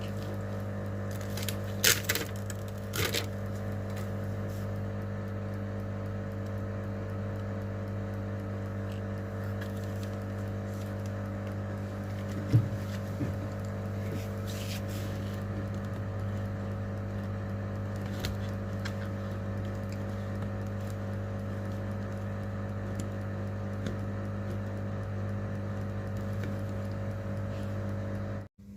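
Small hand tools clicking and tapping against a phone during a display repair, a few sharp clicks in all, over a steady electrical hum.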